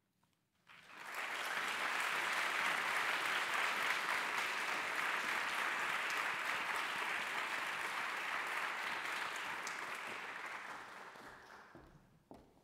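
Audience applauding, starting about a second in and fading away near the end.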